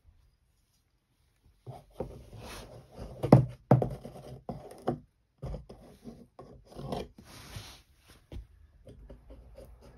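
Irregular scraping, rubbing and knocking on cardboard, starting about a second and a half in. A cat inside a cardboard cat house is scrabbling at a play stick poked in through one of its windows.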